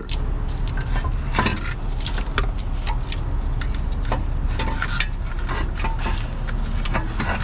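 Irregular metallic clinks and knocks as the EGR cooler and its fittings are worked loose by hand off a Cummins ISB diesel engine, a few clinks ringing briefly, over a steady low rumble.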